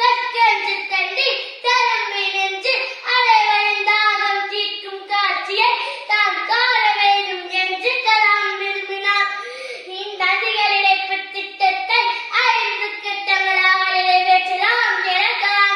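A boy's loud, high-pitched voice in rapid, almost unbroken declamation in Tamil, with a sing-song, oratorical rise and fall.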